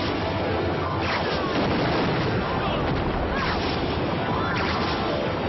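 Fight-scene sound effects: a continuous rushing roar with falling whistling sweeps about once a second, a few hits, and a man shouting.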